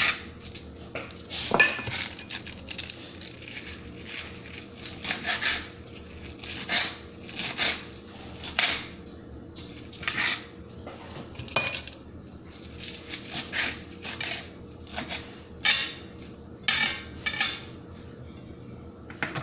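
Kitchen knife chopping fresh spinach on a cutting board: irregular knocks and short strokes, sometimes a few in quick succession, with brief pauses between.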